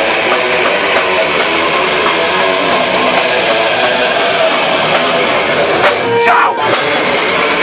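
Heavy metal band rehearsing: distorted electric guitars strumming over drums and cymbals in a dense, loud wall of sound. About six seconds in, the band drops out for a split second, leaving a single note, then comes back in at full tilt.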